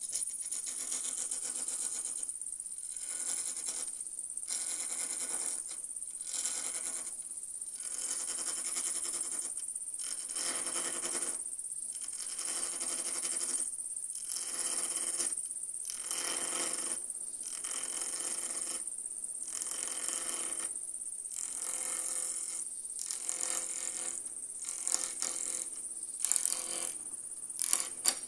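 Wood lathe turning a Bois d'Arc (Osage orange) duck call barrel while a carbide turning tool takes repeated light cuts: bursts of scraping with a ringing tone in them, roughly every one to two seconds. A steady high whine runs underneath.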